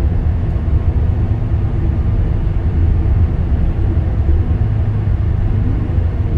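Mitsubishi Fuso Aero Star city bus (LKG-MP37FK) diesel engine running, heard from inside the passenger cabin: a steady, loud low rumble.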